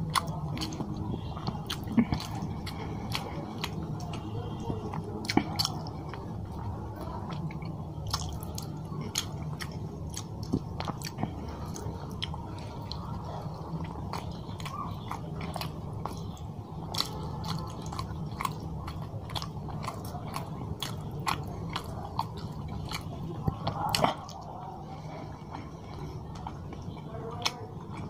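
Close-miked chewing of rice and fish curry, with many short wet mouth clicks and smacks over a steady low hum. One louder smack comes near the end.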